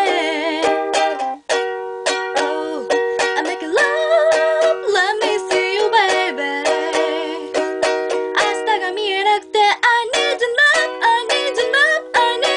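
Ukulele strummed in steady chords, with a voice singing along over it, wavering with vibrato; the strumming breaks off briefly about a second and a half in.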